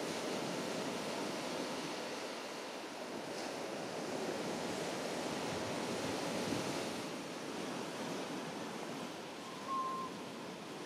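Sea surf washing on the beach with wind noise, swelling and easing. A short single-pitched note sounds about a second before the end.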